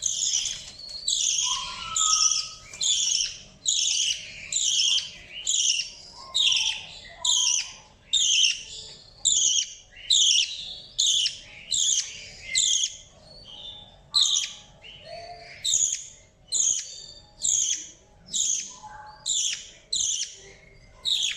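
Baby budgerigar giving a long run of short, harsh, scratchy calls, a little more than one a second.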